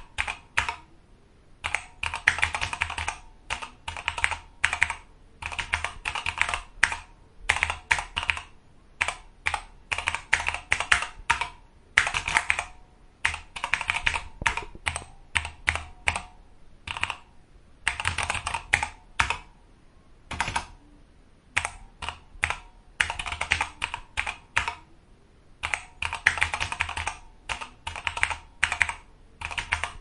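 Typing on a computer keyboard: quick runs of key clicks, broken by short pauses every second or two.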